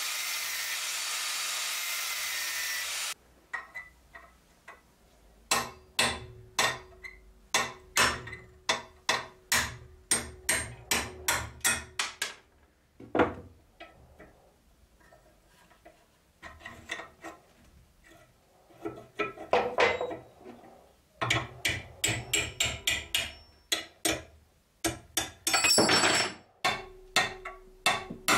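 An angle grinder cuts metal for about three seconds and then stops. A hammer then strikes a steel pin punch in runs of sharp blows, about two a second, with a metallic ring, knocking out a pin from the rusty cleaver fitting held in a vise.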